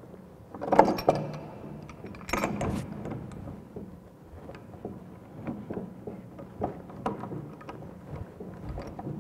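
Metal clanks of pipe wrenches being set on and worked against a threaded galvanized steel pipe and a pump body, with two loud ringing clanks in the first three seconds and lighter clicks after.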